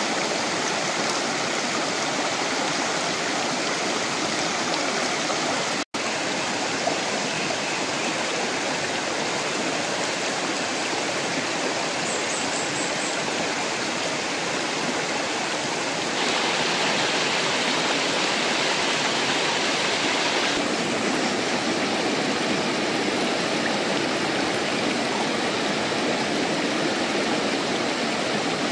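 Shallow river rushing and splashing over rocks and stones, a steady rush of water. It cuts out for an instant about six seconds in, and the hiss grows brighter for a few seconds past the middle.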